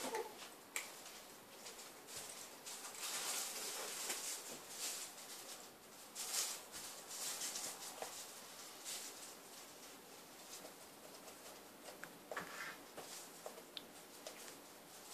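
Norwegian Forest cat biting, chewing and licking an apple held in her paws: a faint, irregular run of small wet crunching and smacking sounds, busiest in the first half and sparser later.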